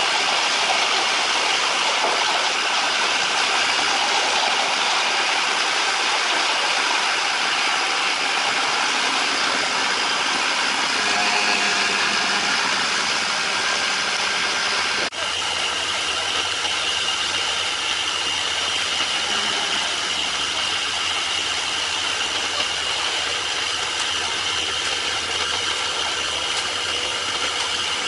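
Engine of heavy construction machinery running steadily, with rattling mechanical noise. The sound changes abruptly about halfway through, and a steady high whine then runs over the engine noise.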